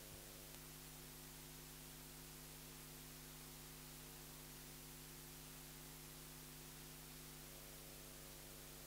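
Near silence: a sound system's steady electrical hum and faint hiss.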